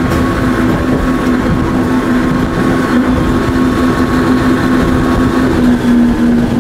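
Rigid inflatable boat's engine running at a steady pitch over a dense rushing noise of water and air.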